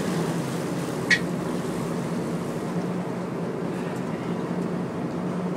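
Sportfishing boat's engine running with a steady low drone, and one brief sharp squeak about a second in.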